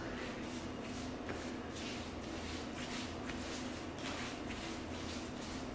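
Hands kneading pizza dough on a floured countertop: soft, rhythmic pressing and rubbing strokes, about three a second.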